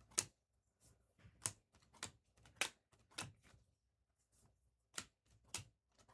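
Trading cards being flipped through and laid down one at a time, each giving a short, sharp click, about nine of them at uneven intervals.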